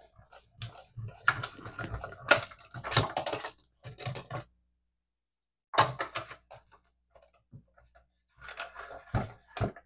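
Hand crank of a Stampin' Up! Mini Cut & Emboss machine being turned, with irregular clicking and knocking as the plastic cutting plates and metal die pass through to cut out a stamped image. There is a pause of about a second partway through.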